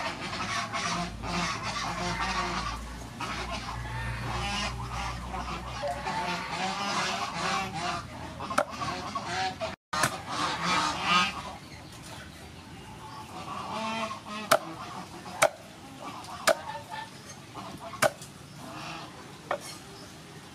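Cleaver chopping cow leg on a wooden chopping board: about seven sharp, separate chops in the second half. Through the first half, loud honking calls of fowl.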